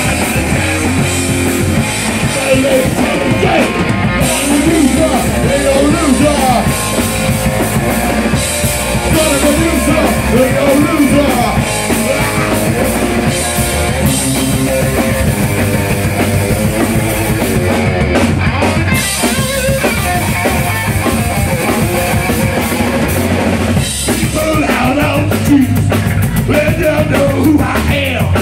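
Live rock band playing loud, with a drum kit, electric guitar and bass guitar, and sung vocals at times.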